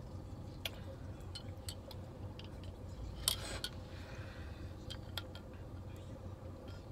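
Ramune soda bottle being drunk from: faint scattered clicks of the marble and bottle, and a short rushing noise about three seconds in, over a steady low rumble in a car cabin.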